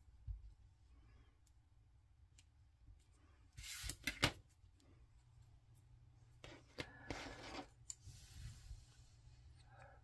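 Quiet handling of small paper pieces with metal tweezers on a cutting mat: a few sharp clicks and taps about four seconds in, then soft rustling of paper later on.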